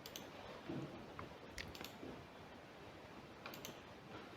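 Faint computer keyboard typing: a few scattered keystrokes, some in quick pairs.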